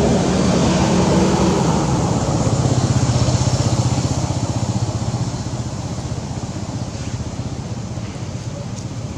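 A motor vehicle's engine running steady and low, loudest about three seconds in and then slowly fading as it passes.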